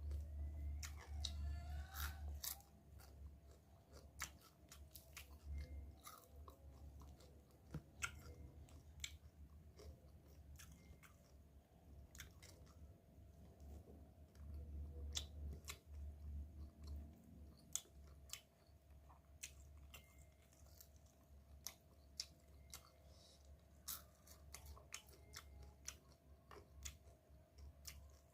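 Close-up chewing and crunching of crispy rice-field crab, with sharp crunches and clicks scattered irregularly throughout.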